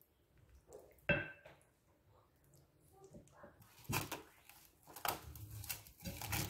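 Plastic cling film being pulled off its roll and stretched over a glass bowl, crinkling and crackling from about halfway through. A short knock about a second in, as the chicken is handled in the glass bowl.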